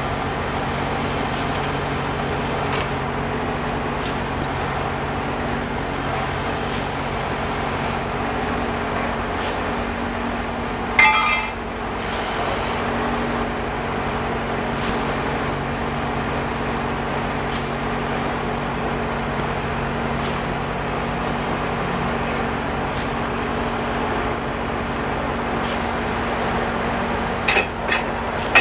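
Engine of a caisson core-drilling rig running steadily. A sharp metallic clink about eleven seconds in and a few more near the end.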